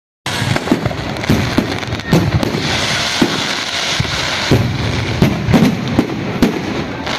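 Fireworks going off in a rapid, irregular string of bangs and low thuds over a continuous rushing noise.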